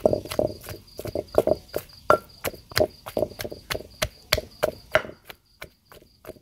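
Wooden pestle pounding shrimp and green mango in a mortar, about three dull knocks a second, stopping about five seconds in.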